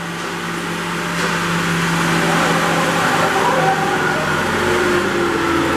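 The Kohler turbo engine of a Princeton PB55.3 truck-mounted forklift running steadily as the machine drives. It grows louder over the first couple of seconds and then holds.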